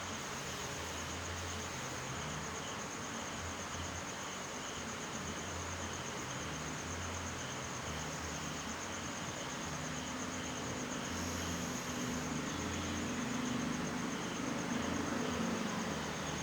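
Steady high-pitched insect trill, of the cricket kind, over a constant hiss, with an intermittent low hum underneath; a low drone swells in the last few seconds.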